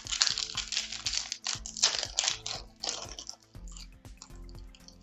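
Foil trading-card booster pack wrapper being crinkled and torn open, a loud crackling for about the first three seconds, then fainter rustling, over background music.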